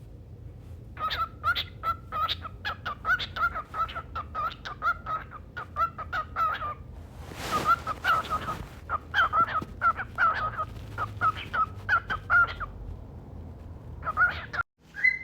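A bird calling over and over in short, rapid, pitched notes, about three a second, with a brief rushing hiss about halfway through.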